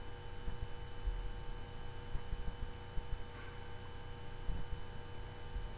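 Steady electrical hum, with a few faint low bumps.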